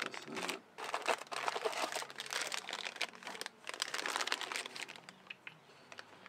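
Clear plastic bags holding cables crinkling as they are handled and opened, dying down near the end.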